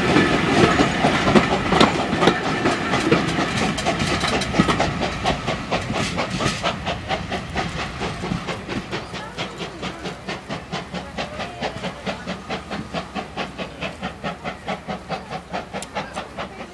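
Railway coach wheels running over rail joints close by in a steady, rapid clickety-clack that fades as the train draws away.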